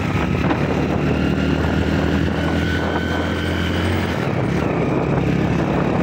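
Motorcycle engine running steadily while riding along a road, with wind rushing over the microphone; the engine note changes about four seconds in.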